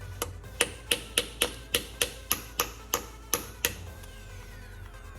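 A dozen light hammer taps on a steel punch, about three a second and stopping near the end, knocking a broken bolt around so that it spins out of its hole.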